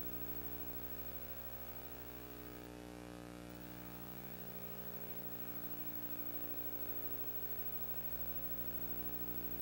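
Steady low electrical mains hum and buzz.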